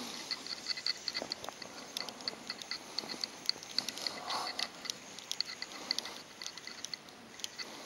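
Fishing reel clicking: quick, uneven, high metallic ticks, several a second.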